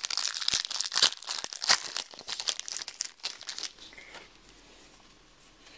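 Foil trading-card pack wrapper torn open and crinkled by hand: dense crackling for about three and a half seconds that then dies away.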